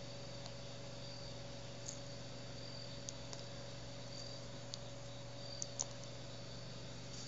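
Faint steady background hum and hiss with a thin high-pitched trill that comes and goes, and a few small soft clicks.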